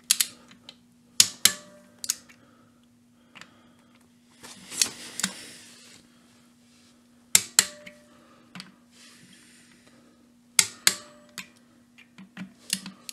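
Click-type torque wrench breaking over as each clutch spring bolt reaches its set torque of about 10 N·m: sharp clicks, mostly in quick pairs, every two to three seconds, with a brief rustle of the tool between bolts.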